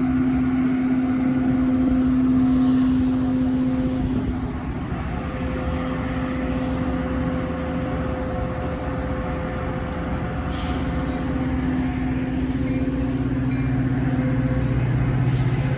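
Metra commuter train's diesel locomotive running at the station with a steady hum. There are two short hisses of air about ten and fifteen seconds in, and a deeper engine note builds near the end.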